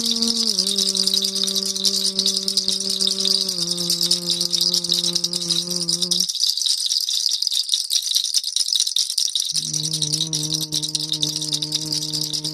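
A hand rattle shaken continuously in a fast, even shake, over a low held note that steps down in pitch twice, breaks off for about three seconds midway and resumes on another pitch.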